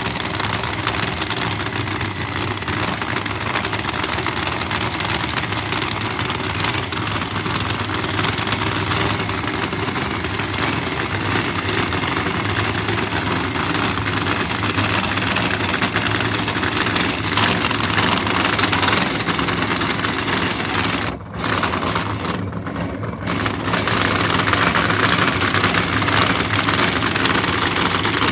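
Funny car's supercharged V8 drag-racing engine running steadily at a loud, rough idle. It dips briefly about 21 seconds in and again a second or so later, then runs a little louder.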